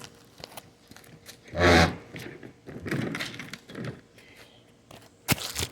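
Scraping and rubbing as the upturned electric lawnmower is handled, with a short loud vocal sound about a second and a half in and a sharp knock near the end.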